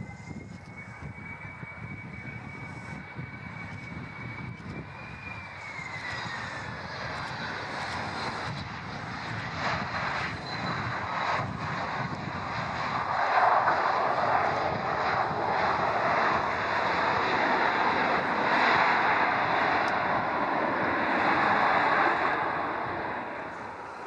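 Boeing 737-300's CFM56-3 turbofan engines whining on final approach, the whine dropping in pitch about five seconds in. After touchdown a much louder rushing engine noise builds and holds for about ten seconds before easing off near the end, typical of reverse thrust on the landing roll.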